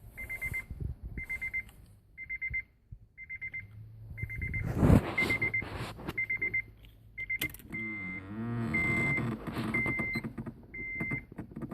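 A short, high, buzzing chirp at one steady pitch repeats about once a second, over and over, from behind the lower driver's-side dash of a 2007 Acura RDX. It happens with the ignition on but the engine and AC off, and its cause is unknown. A single louder knock comes about five seconds in.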